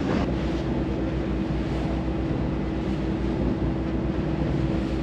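Ferry's engine running steadily: a low pulsing throb under a steady hum, with the noise of the crossing around it.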